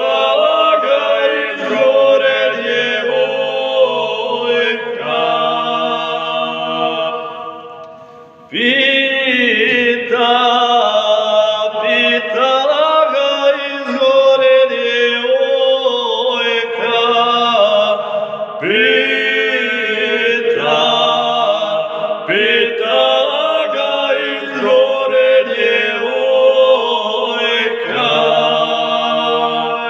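Two men singing a Serbian folk song unaccompanied ('na suvo'), in long, drawn-out held phrases. The voices fade at each phrase end and start a new phrase about 8 and 19 seconds in.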